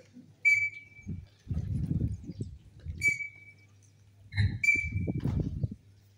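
Three short, sharp whistle blasts for drill commands. Between them come low, rumbling bursts of a large formation of cadets moving together, boots stamping in unison on the dirt parade ground.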